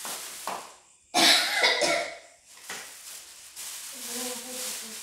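A woman coughing: softer breathy coughs, then one loud harsh cough about a second in, and a short voiced sound near the end.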